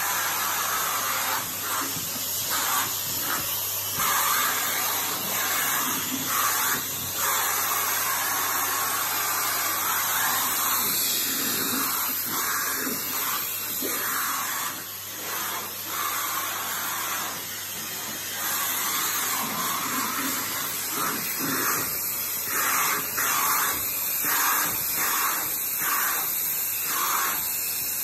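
Vacuum cleaner running with a steady hiss of suction, its wand nozzle drawn through a dog's long, thick coat. The hiss swells and dips as the nozzle moves over the fur, with a low motor hum underneath.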